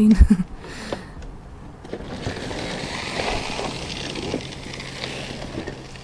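Rustling and crinkling of trash and packaging being rummaged through by hand, swelling for a few seconds, with a knock just after the start.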